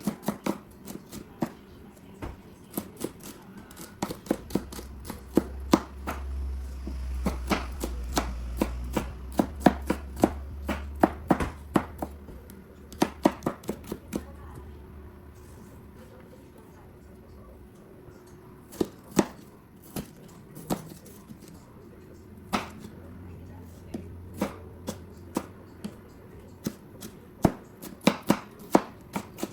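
Knife chopping on a cutting board: runs of quick, uneven strokes with short pauses between them. A low hum sits under the first half.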